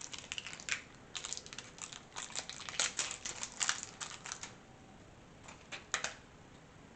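Batteries being pressed into the plastic four-battery holder of a keypad deadbolt: a quick run of small clicks and rattles for about four and a half seconds, then a few more clicks near the end.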